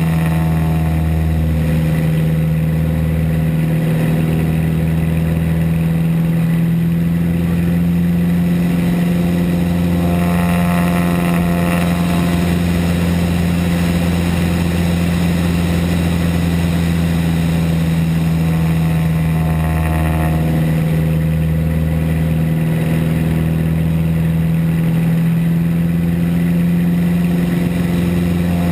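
Van's RV aircraft's piston engine and propeller drone steadily, heard from inside the cockpit through a series of loops. The tone shifts slightly about every ten seconds as power and airspeed change around each loop.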